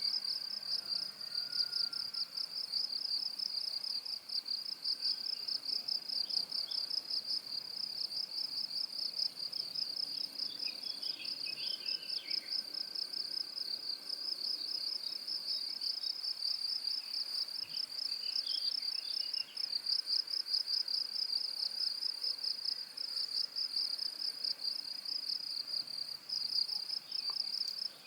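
Crickets chirping in a continuous, high-pitched, fast pulsing trill that stays steady throughout, used as a tinnitus masking sound.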